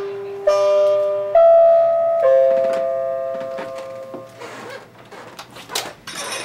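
A musical doorbell chime playing a short run of ringing notes, each held and slowly fading. About four and a half seconds in come clicks and rattles of a deadbolt and doorknob being turned, with one sharp latch click near the end.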